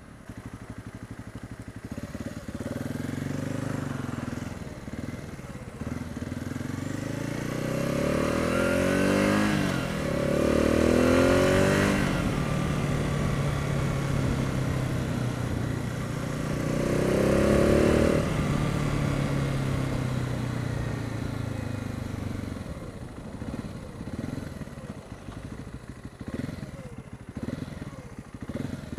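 Husqvarna TR 650 Strada's single-cylinder engine under way, with wind rushing past. Its revs climb in rising sweeps as it accelerates through the gears, around 8 to 12 seconds in and again around 17 to 18 seconds, then it holds steady and eases off as the bike slows near the end.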